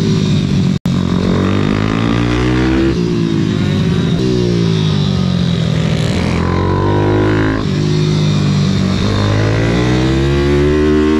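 YCF SM 190 Daytona pit bike's single-cylinder four-stroke engine heard onboard at speed. Its pitch falls and rises several times as the rider goes on and off the throttle through the corners. There is a brief dropout in the sound about a second in.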